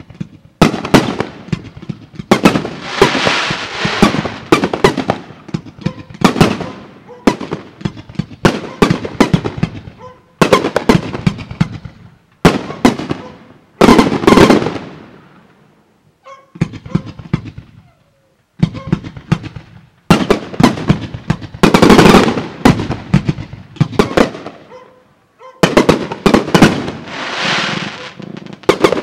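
Fireworks display: aerial shells launching and bursting in quick succession, loud sharp bangs with stretches of dense crackling between them. The sound breaks off abruptly several times, around the middle and again later on.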